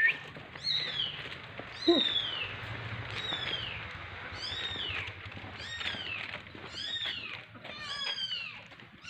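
A small kitten mewing over and over, high-pitched cries about once a second that each rise and fall and come closer together near the end: the crying of an abandoned kitten.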